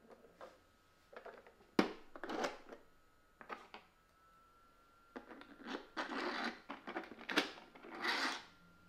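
The door of a 3D-printed plastic mini vault is pushed shut with a sharp click about two seconds in. Near the middle a plastic key goes into its lever tumbler lock and is turned, with a run of small clicks and scraping from the printed lock parts.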